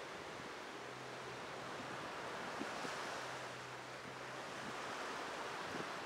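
Small waves breaking and washing up a sandy, rocky beach: a steady surf hiss that swells and eases gently, with some wind on the microphone.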